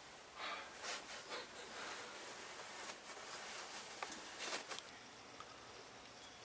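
Soft rustling and scuffing in a string of short bursts over the first five seconds, with a couple of sharp clicks, then quiet background.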